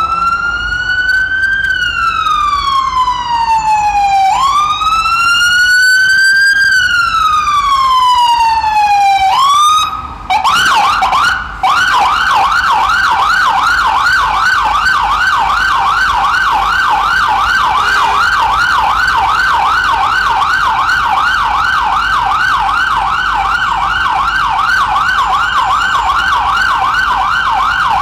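Ambulance's electronic siren, loud and close: a slow wail rising and falling over a few seconds per sweep, then about ten seconds in, after a short break, it switches to a fast yelp of several sweeps a second.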